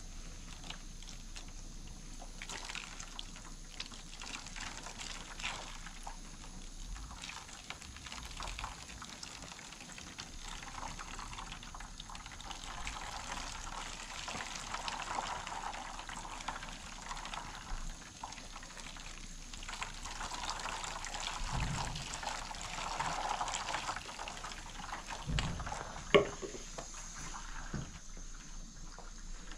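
Water poured from a plastic jug over a child's head, splashing and trickling into a plastic basin as her hair is rinsed. Near the end, a single sharp knock.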